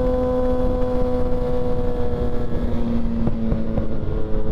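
Suzuki Hayabusa inline-four engine and exhaust running steadily at cruise. About two and a half seconds in the engine note drops a little as the throttle eases off, and a few sharp exhaust pops follow.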